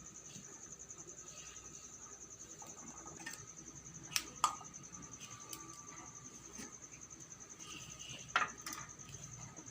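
Steady high-pitched insect trill, with three sharp clicks: two close together about four seconds in and one more past the eight-second mark.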